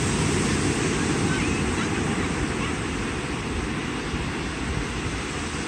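Ocean surf breaking and washing up the beach: a steady rush of noise, heaviest in the low end.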